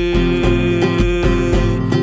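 Acoustic guitar being strummed over a steady low drum beat, about two beats a second.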